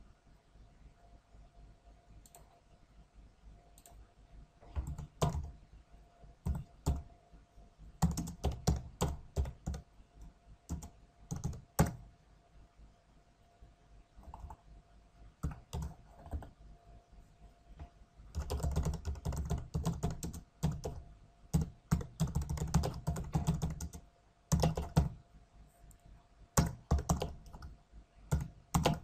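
Typing on a computer keyboard: keystrokes clicking in quick runs with short pauses between words, starting about four seconds in.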